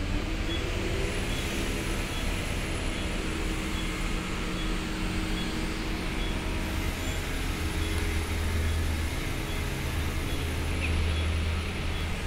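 A steady low mechanical drone, strongest in the bass, swelling a little toward the end, with a faint high chirp repeating about once a second.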